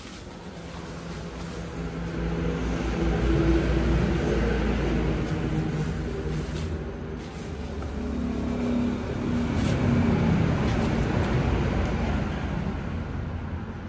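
A motor vehicle's engine running, swelling louder twice and easing off, with the crinkle of plastic bubble wrap being handled.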